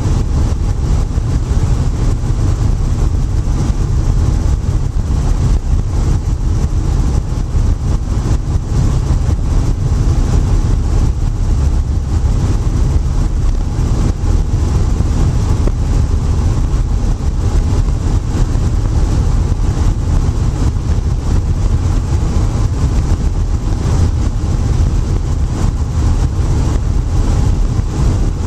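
Steady, loud drone of a Robinson light helicopter's engine and rotor in level cruise flight, heard from inside the cockpit, deep and unchanging.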